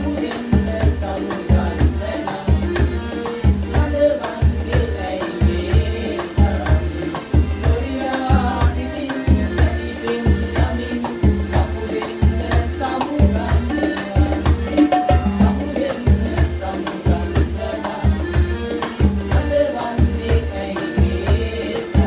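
Sinhala folk-pop song played live on piano accordion, bongos, a hand drum, a shaker and a tambourine, with men singing. It keeps a steady beat of low drum thumps about twice a second, with shaker ticks on top.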